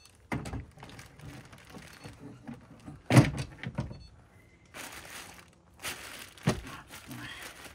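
A lithium battery being set down and shifted in a metal battery compartment: three hard thunks, the loudest about three seconds in, with plastic bag rustling between them.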